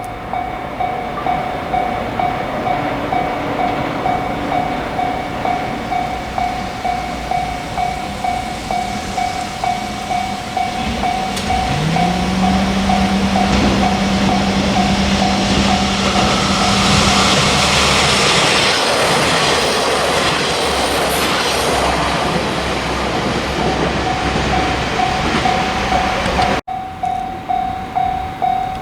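Japanese level-crossing warning bell ringing in quick, even dings, about two a second, while an Ainokaze Toyama Railway train passes. About twelve seconds in, a steady low tone sets in and holds for several seconds, then the loud rush and clatter of the train's wheels over the rails drowns the bell for a few seconds before it rings clearly again.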